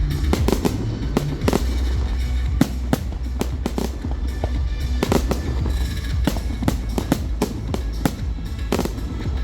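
Fireworks display: a rapid, continuous run of bangs and crackles from exploding shells, several each second, with music playing underneath.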